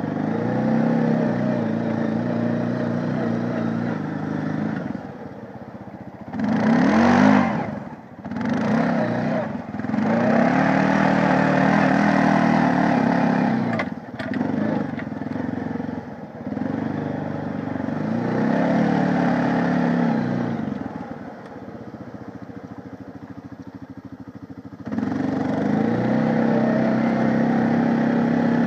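Honda 500 ATV's single-cylinder four-stroke engine running under way, the throttle opened and eased off again and again. It revs up sharply about a quarter of the way in and drops to a low coast for a few seconds near the end before pulling again.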